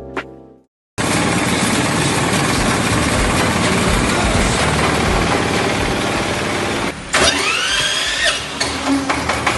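Diesel engine running a rice milling machine, loud and dense with mechanical noise. About seven seconds in the level dips briefly, then a whine rises in pitch and levels off.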